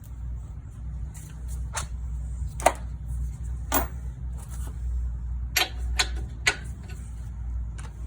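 Scattered sharp metal clicks and clacks of tools being handled, about seven in all, over a steady low hum.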